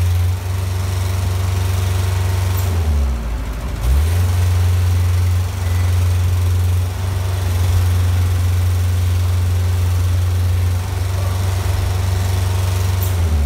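Engine of a container side lifter running steadily with a deep hum. About three seconds in, its speed dips briefly and then picks back up.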